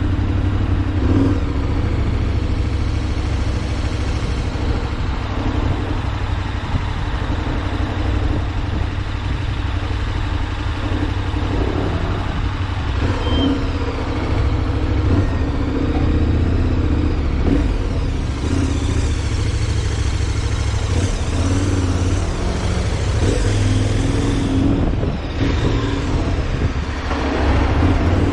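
Road vehicle driving along, with a steady engine and road rumble and wind noise on the microphone.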